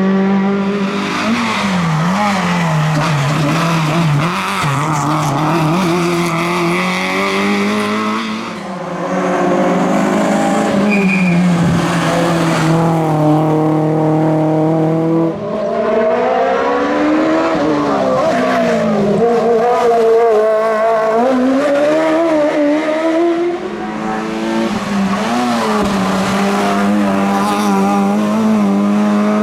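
Race car engines at full throttle, their pitch rising and falling through gear changes and corners, with tyre squeal; the sound changes character a few times, as if one car follows another.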